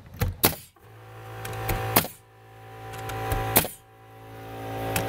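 Ridgid framing nailer driving nails into wooden rain-screen battens: three sharp shots about a second and a half apart, over a steady hum that swells between them.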